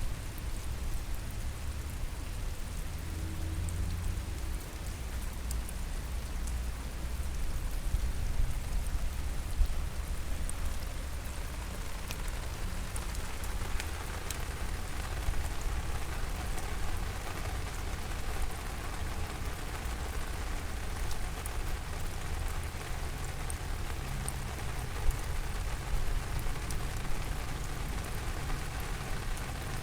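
Steady rain falling, with scattered sharp drop ticks over an even hiss and a low rumble underneath; the hiss thickens about halfway through.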